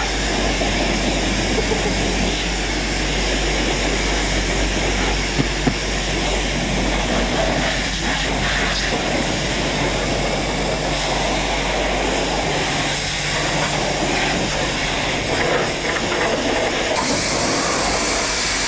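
Dirt bike riding, its engine mostly covered by a steady rush of wind over the microphone.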